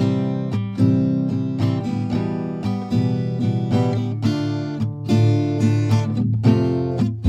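Background music: acoustic guitar being strummed and plucked.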